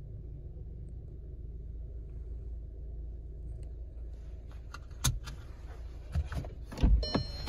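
Keys jangling on the ring and clicking in the ignition of a 2016 Volkswagen Jetta. Several sharp clicks and heavy thumps in the last two and a half seconds, the loudest just before the end, over a steady low rumble.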